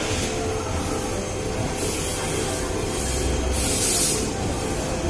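Machinery running with a steady hum and low rumble, with two loud hisses about two seconds apart, the second the louder.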